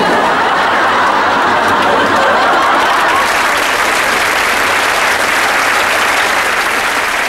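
Audience applause, a loud steady clapping that swells in right away and holds throughout.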